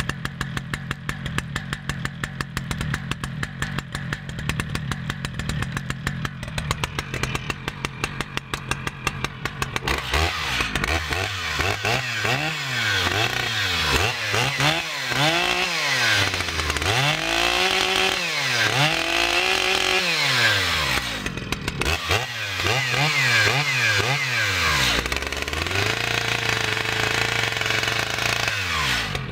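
New Stihl MS 881 Magnum chainsaw's 121.6 cc two-stroke engine idling for about ten seconds, then revved up and back down again and again in short throttle blips, with one longer high rev near the end.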